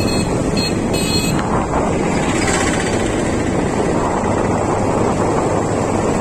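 Steady rush of wind buffeting the microphone on a moving motorcycle, mixed with road and engine noise. A brief faint high tone sounds in the first second or so.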